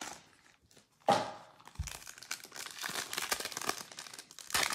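Foil wrapper of a Panini Select football card pack crinkling and tearing as it is ripped open by hand, starting about a second in, with a brief low bump about two seconds in.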